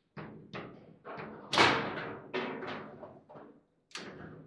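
Table football in play: the ball and rod-mounted plastic figures clacking and knocking on the table, with one hard bang about a second and a half in, typical of a shot slamming into the goal, and another sharp knock near the end.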